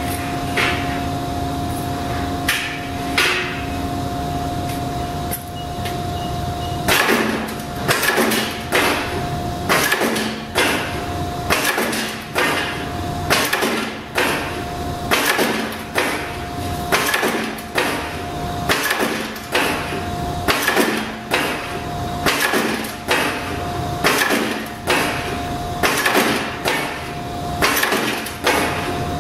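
Small semi-automatic flywheel punch press with a pneumatic bar feed: the press motor hums steadily. About seven seconds in the press starts cycling on its own, striking in an even rhythm a little more than once a second as it punches bar stock.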